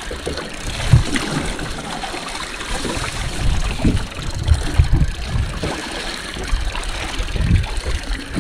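Water lapping and slapping against the hull of a drifting small fishing boat, with irregular low thumps.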